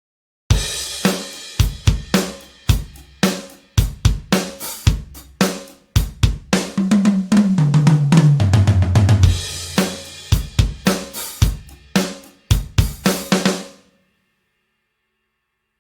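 Toontrack EZDrummer 3 virtual drum kit playing a groove of kick, snare, hi-hat and cymbals. In the middle comes a fill that steps down in pitch. It stops about 14 seconds in.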